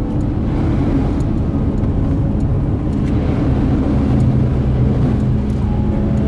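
Steady drone of a car's engine and road noise while driving.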